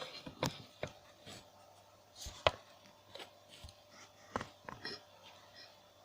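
Irregular light clicks and taps of small objects being handled, with a sharper knock about two and a half seconds in.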